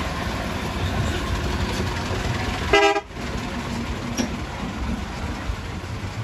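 A vehicle horn gives one short blast about three seconds in, over a steady low rumble of street traffic.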